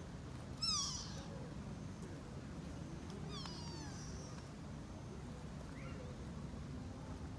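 Sika deer fawn calling: a loud, high-pitched, downward-sliding bleat about half a second in, then a fainter one a few seconds later.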